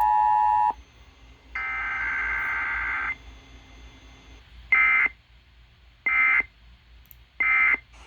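Emergency Alert System two-tone attention signal cutting off suddenly under a second in. It is followed by a burst of shrill digital data tones and then three short data bursts a little over a second apart, the end-of-message code.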